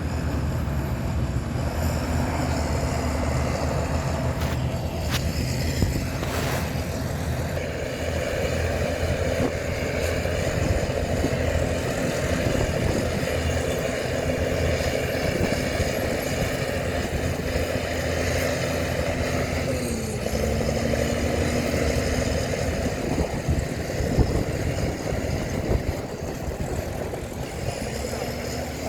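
Diesel engine of heavy earthmoving machinery running steadily, with a few short clanks; its note dips briefly about twenty seconds in.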